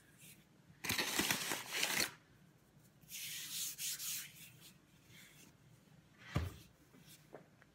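Rolling pin pushed over floured dough on a cutting board: two long rubbing, scraping passes, then a single dull knock about six seconds in.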